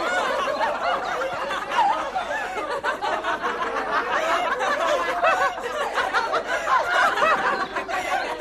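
A group of people laughing and chattering together, many voices overlapping, with a young woman's laughter among them.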